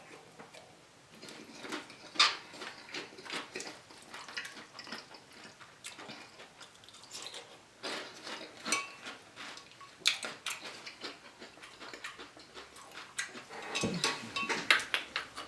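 Eating sounds: a spoon clinking and scraping in a glass bowl of soup, mixed with chewing, in scattered short clicks that bunch together around two, eight to ten, and fourteen seconds in.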